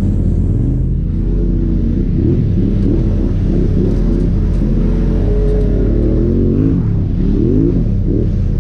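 Polaris RZR 1000 side-by-side's twin-cylinder engine, heard onboard while driving, revving up and falling back again and again as the throttle is worked.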